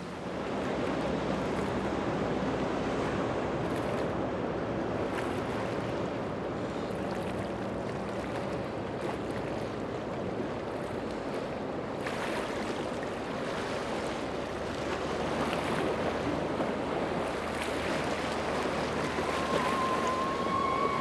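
Speedboats running fast through rough water: a steady rush of hull spray and waves mixed with outboard engine noise. Near the end a long high-pitched tone comes in, holds, then falls away.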